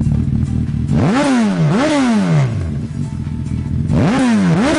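Suzuki 1000 cc sport motorcycle idling, then its throttle blipped twice about a second in and twice more near the end. Each rev rises sharply and sinks back to idle.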